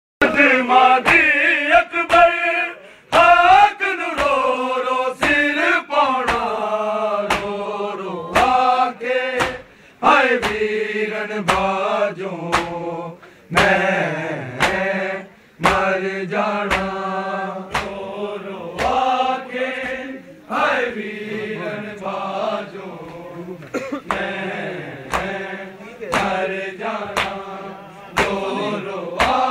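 Men's voices chanting a Punjabi noha, a Muharram lament, over a steady beat of sharp hand slaps on bare chests (matam).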